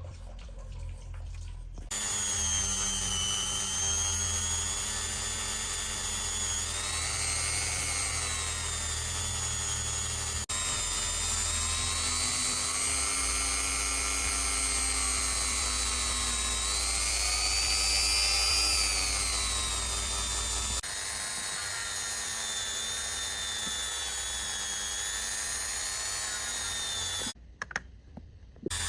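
Small high-speed rotary tool running with a steady whine whose pitch sags and rises as it is pressed against a watch part. It cuts out briefly near the end.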